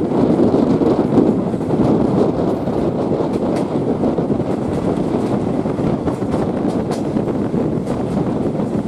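Passenger train running at speed, heard from aboard: a steady rumble of wheels on the rails mixed with wind buffeting the microphone, with a few faint clicks.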